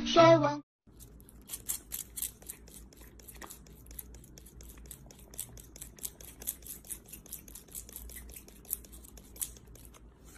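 A brush being stroked through a cat's fur, making a quick run of short, scratchy rasps, several a second.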